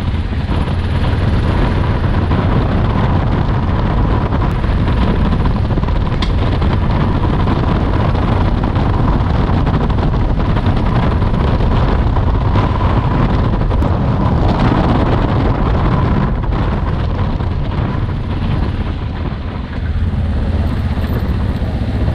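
Trail motorcycle engine running steadily while riding a dirt track, with wind rushing over a helmet-mounted microphone. The engine eases off briefly about three seconds before the end, then picks up again.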